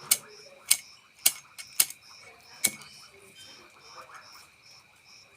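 Five sharp clicks, about half a second apart for the first four, the fifth a little later. Under them runs a steady, evenly pulsing chirping of night creatures.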